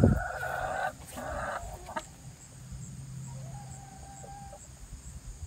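Rhode Island Red hens clucking close by: two short calls in the first second and a half, then a longer held note about four seconds in. A low thump comes right at the start.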